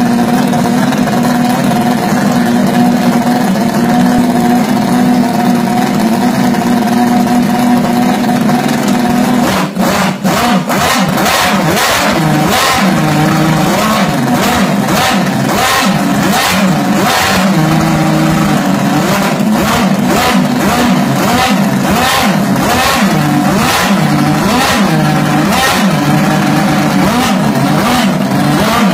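Miniature scale-model piston engine running, loud and steady at idle at first. From about ten seconds in it is revved again and again by hand on the throttle linkage, its pitch rising and falling with each blip.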